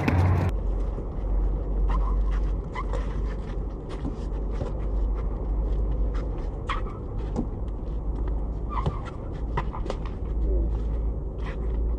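Outdoor pickup basketball play: a steady run of sharp knocks from the ball bouncing and hitting the rim and from players' feet, with a few short high squeaks over a steady low rumble.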